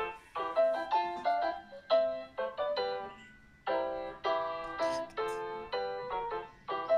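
Background music: a keyboard melody of short, separate notes, briefly pausing about three seconds in.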